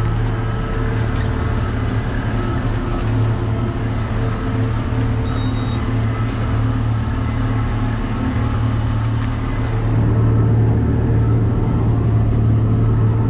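John Deere 7600 tractor running steadily under load, driving a PTO rotary cutter through pasture grass, heard from inside the cab as a steady low hum. It gets a little louder about ten seconds in, and a brief high beep sounds about five seconds in.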